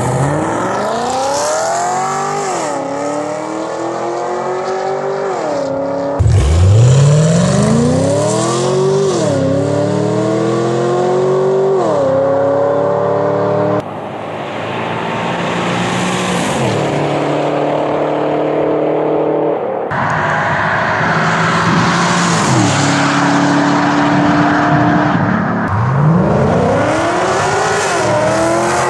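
Chevy SS's 6.2-litre V8 accelerating hard through the gears, its pitch climbing and then dropping back at each upshift. Several short clips are cut together, comparing the factory exhaust with stainless-steel aftermarket headers.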